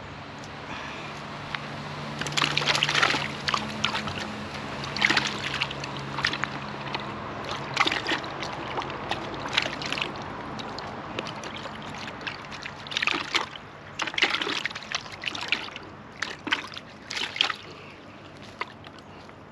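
Water splashing and sloshing in about a dozen short, irregular bursts, with a low steady hum underneath for the first several seconds.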